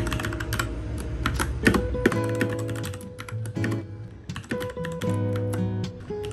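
Typing on an RK61 mechanical keyboard: a quick run of key clicks, over background music with sustained notes.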